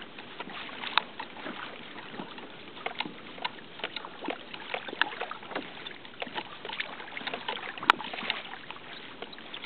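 Small waves lapping against a plastic fishing kayak's hull, with an irregular patter of little splashes and clicks over a steady wash.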